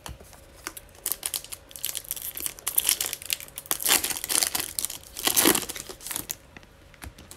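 Foil trading-card pack being torn open and crinkled in the hands: dense crackling and rustling that starts about a second in, is loudest near the end of the tearing, and dies down just before the end.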